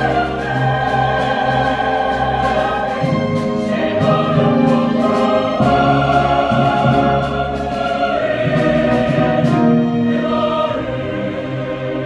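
Choir singing with a string orchestra in live performance, in sustained chords that grow softer near the end.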